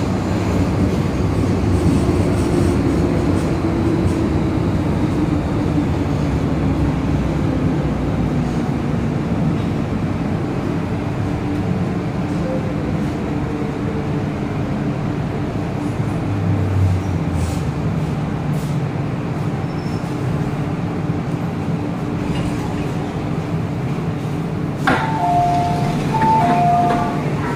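Cabin sound of a Metro Cammell M-train slowing into a station: a steady rumble with a motor whine that falls gently in pitch. Near the end comes a repeating two-tone door chime as the doors open.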